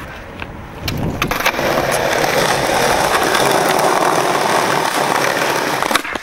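Skateboard wheels rolling over pavement in a steady rumble that starts about a second in, ending with a sharp pop near the end as the board is flipped for a kickflip.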